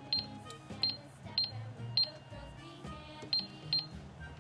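McDonald's toy cash register's keypad beeping as number keys are pressed: six short high beeps at uneven intervals, one per key press, with music playing underneath.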